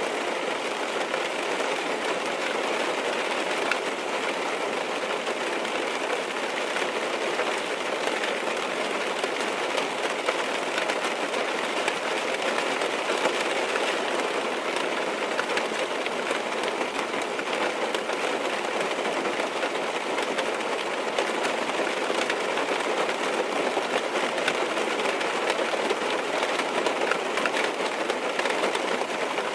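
Steady rain falling on a car's roof and windows, heard from inside the car: a constant, even hiss of many small drop impacts that does not let up.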